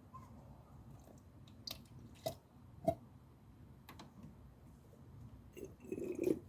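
Scattered light clicks and knocks from plastic parts being handled, four separate taps followed by a brief cluster of rustling and knocking near the end.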